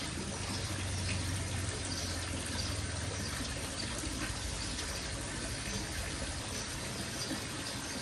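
Water splashing and trickling steadily into a koi pond from return pipe outlets along the pond wall.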